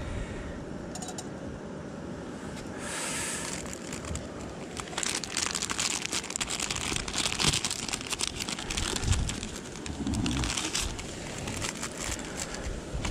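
A plastic coffee-filter bag crinkling and rustling in irregular bursts as a paper filter is pulled out of it.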